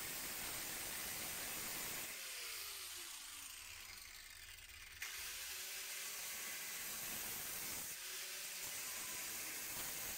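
Angle grinder with a thin cutting disc cutting through the van's rotten steel wheel arch panel: a steady hiss of disc on sheet metal. It eases off and quietens between about two and five seconds, then picks up again.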